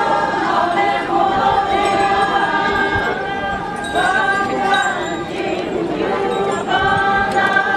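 A group of voices chanting together in long held notes, phrase after phrase, with the pitch sliding at the end of each phrase.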